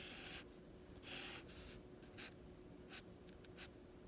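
Drawing strokes scratching across paper: two longer strokes in the first two seconds, then three short quick strokes.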